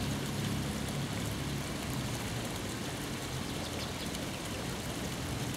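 Steady outdoor background noise: an even rushing hiss with a low hum beneath it.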